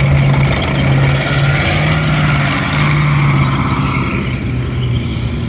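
A World War II light tank's engine running as the tank drives close past on its tracks: a steady low drone that eases a little near the end.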